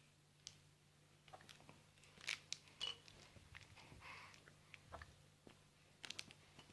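A baby's faint hiccups and small mouth clicks: a handful of short, soft sounds scattered over near silence.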